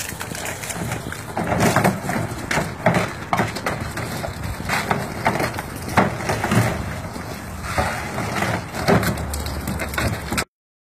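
Water spraying from a running garden hose that a dog carries in its mouth, splashing onto paving and into a hard plastic paddling pool with irregular crackling spatters. It cuts off suddenly near the end.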